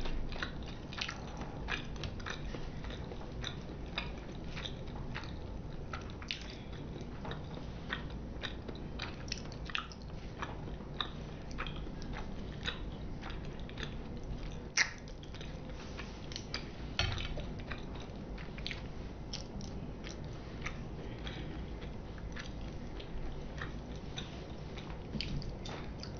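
Close-miked chewing and biting of sushi and sashimi: a steady run of wet mouth clicks and smacks, with a sharper click about 15 seconds in and another about 17 seconds in.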